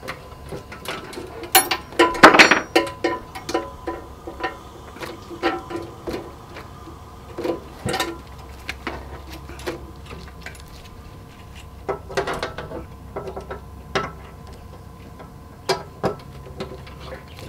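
Scattered clicks and metallic knocks from hose fittings and controls being handled on a UV-cure control unit, while the air is switched off before the vacuum goes on. A louder run of clatter comes about two seconds in, over a faint steady hum.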